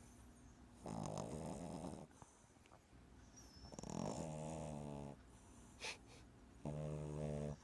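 English bulldog puppy snoring in its sleep: three snoring breaths a few seconds apart, the first two rasping, the last a pitched, buzzing snore near the end.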